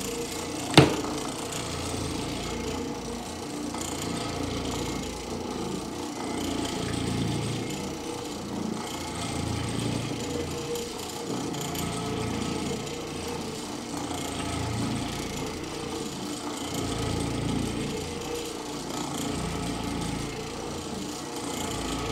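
Oreck Orbiter orbital floor machine running steadily as its pad scrubs across carpet, a continuous vibrating motor hum, with one sharp knock about a second in.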